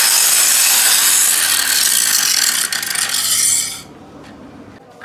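Corded electric angle grinder grinding the edge of a steel chequer plate, a loud steady grind of disc on metal that stops about four seconds in.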